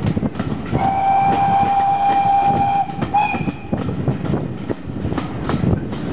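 A steam locomotive's whistle sounds one long blast of about two seconds, then a short one, over the continuous rumble and clatter of the carriages' wheels on the rails.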